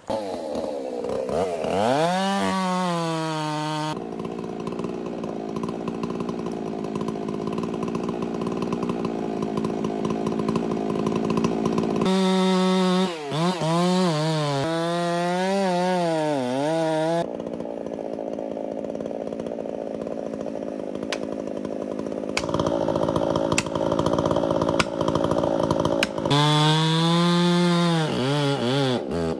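Chainsaw cutting into the base of a large tree to fell it: the engine runs steadily under load in the cut, and in three stretches its pitch swings up and down again and again as the saw works the cut.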